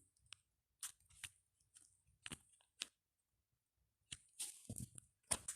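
Faint, irregular sharp clicks and taps, about a dozen, with a quick bunch of them about four and a half seconds in.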